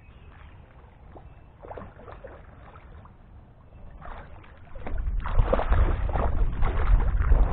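Hooked carp thrashing in the shallows at the bank, with loud, irregular water splashing that starts about five seconds in. Before that, only faint scattered water sounds.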